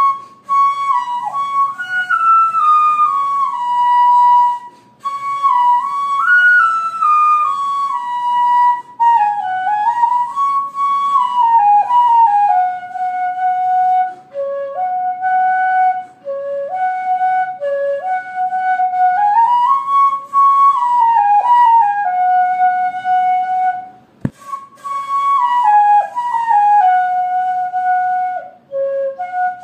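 Background music: a solo flute melody, one line of notes stepping up and down with short slides, breaking off briefly twice.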